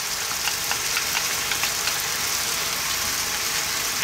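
A wok of onions and mushrooms in sauce sizzling and bubbling steadily on high heat, with a few small crackles in the first couple of seconds.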